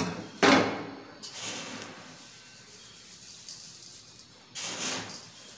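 Hands mixing damp marble chips with yellow paint in a steel bowl, coating each grain to dye them: a gritty rubbing hiss, with a brief loud clatter about half a second in and a louder stretch of rubbing near the end.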